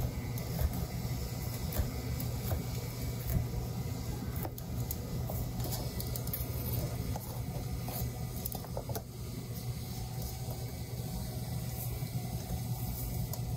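A steady low machine hum with scattered light clicks and clatter over it.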